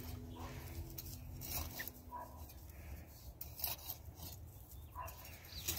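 Faint, scattered scrapes and rustles of a small metal hand trowel working loose soil.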